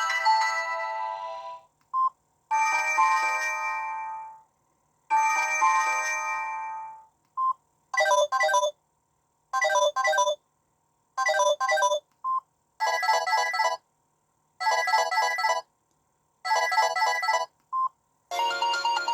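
Samsung SGH-E500 mobile phone playing its built-in polyphonic tones one after another. Each tone plays two or three times with short silent gaps between, and a short beep comes before each new tone. A fresh tune starts near the end.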